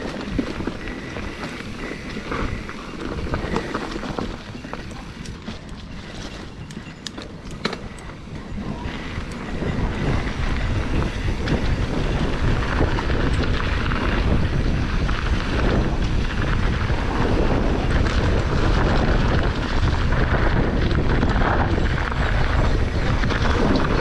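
Mountain bike rolling down a dirt trail, with wind buffeting the camera microphone and the rattle of the bike over rough ground. A few sharp clicks come about six to eight seconds in. From about ten seconds in, the wind rush grows louder and heavier.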